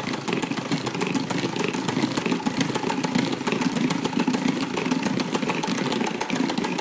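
Electric hand mixer with double beaters running steadily at its lowest speed, churning warm milk as it is poured into beaten egg yolks in a plastic bowl, mixed slowly so the egg does not curdle.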